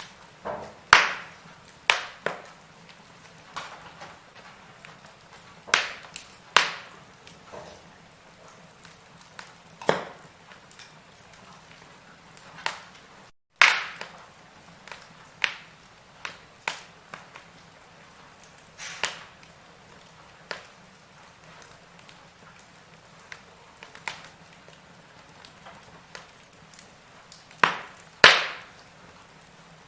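Wood fire in a fireplace crackling, with sharp irregular pops every second or two over a faint steady hiss.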